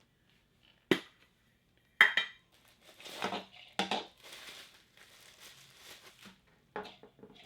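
Funko Pop packaging being handled: a few sharp knocks and clicks of the box being moved and set down, with rustling of the packaging in between.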